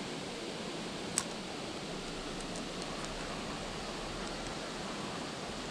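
Steady rush of flowing stream water, with a single sharp click about a second in and a few faint ticks later.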